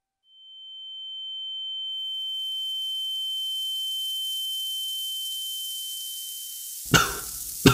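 Ear-ringing sound effect: one steady high whine with a fainter lower tone under it and a hiss rising in, fading in and slowly sinking, the ringing of a stunned head after a blast. It stops short near the end, followed by two brief crackling bursts.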